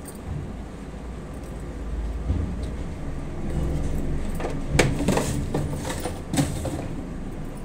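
Handling clatter on a kitchen counter: a large plastic jar and bottles being picked up and set down, with a run of clicks and knocks about four and a half to six and a half seconds in, over a low rumble.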